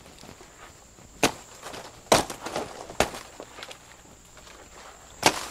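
Machete chopping into a felled banana plant's fleshy green stalk: four sharp strikes, three about a second apart, then a pause of two seconds before the last.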